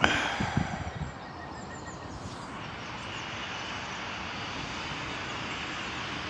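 Steady rushing outdoor noise, with a few bumps in the first second.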